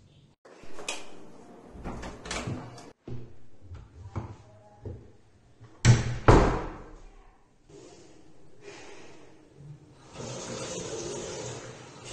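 Scattered knocks and shuffles, then a wooden door bangs shut twice in quick succession about six seconds in, the loudest sound. Near the end a steady rush of water begins, a tap running into a washbasin.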